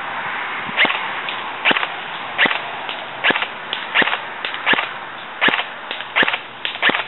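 G&G blowback airsoft electric rifle firing single shots, about nine sharp cracks roughly three-quarters of a second apart, with fainter clicks between them.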